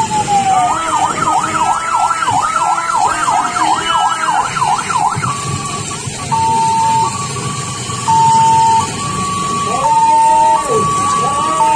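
Electronic emergency siren: a falling wail ends, then a fast up-and-down yelp of about three sweeps a second, which about five seconds in switches to a two-tone hi-lo pattern alternating steadily between two pitches.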